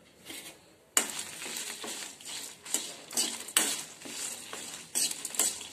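A spatula scraping and stirring peanuts, dried red chillies, curry leaves, coriander seeds and cumin around a metal kadai as they roast, with the nuts and seeds rattling against the pan. It comes as a series of quick strokes starting about a second in.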